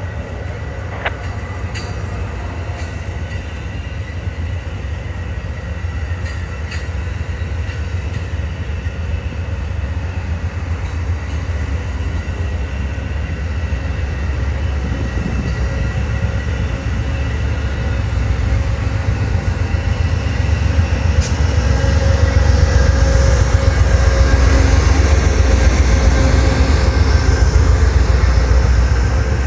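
Amtrak Superliner double-deck passenger cars rolling past, with a steady low wheel-on-rail rumble. The sound grows louder over the last several seconds as a GE P42DC diesel locomotive comes by.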